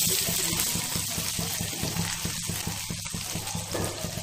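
Shami kababs shallow-frying in mustard oil on medium heat, the oil sizzling steadily around the patties, with a low steady hum underneath.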